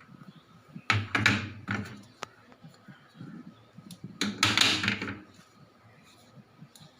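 Refrigerator door and its plastic fittings being handled: a cluster of knocks about a second in, then a longer rattle around four seconds in.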